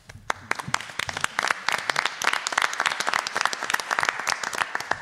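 Applause from a small group of people clapping, a dense patter of hand claps that starts suddenly, builds over the first second or so and dies away near the end.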